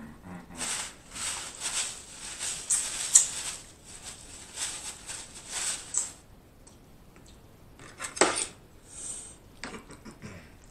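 Close-miked eating of snow crab: a run of wet smacking and chewing bursts, irregular and crackly. It then goes quieter, with a sharper clack about eight seconds in and a fork scraping and clinking on the plate near the end.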